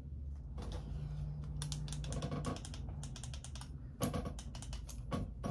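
Typing on a smartphone: a quick run of short taps and clicks, with a couple of louder clicks about four seconds in.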